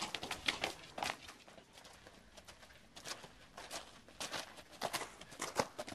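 Footsteps of several people walking through light snow, an uneven run of short steps.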